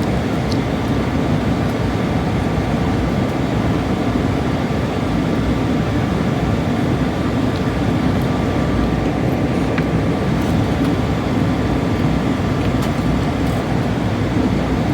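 Steady cabin roar of an airliner in flight: engine and airflow noise with a faint steady tone above it.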